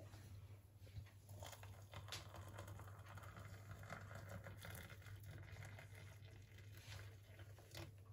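Hot water poured from an electric kettle into a mug of instant latte powder: a faint, steady pour over a low hum.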